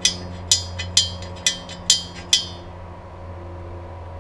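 Six light metallic clinks, about two a second, from metal parts being handled on an AK rivet jig, over a low steady hum.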